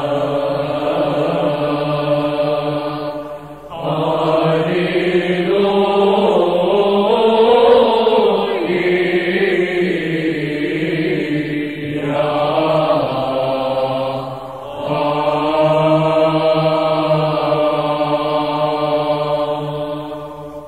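Byzantine Orthodox church chant sung in Arabic: long melismatic phrases held over a steady low drone (ison). There are two short breaks between phrases, and the chant fades out near the end.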